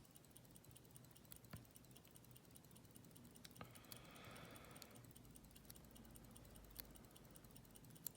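Faint, scattered small clicks of a lock pick and tension wrench working the pins inside a Master Lock lockout padlock being picked.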